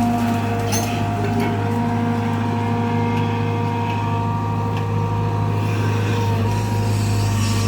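Kobelco Yutani SK120 excavator's diesel engine running steadily while digging, with a few short knocks about a second in and again near the middle.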